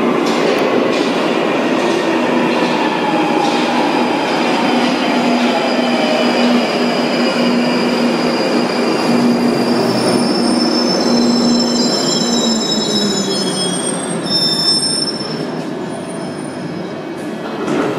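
London Underground 1995 Stock tube train running into the platform and braking to a stop: a loud rumble of wheels on rail with a steady whine that drops in pitch as it slows. High wheel and brake squeals come in over the last several seconds before it halts.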